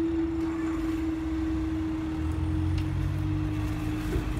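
Level crossing barrier lifting mechanism humming with one steady, slightly falling tone as the barriers rise. A car engine joins from about two seconds in as a car drives onto the crossing.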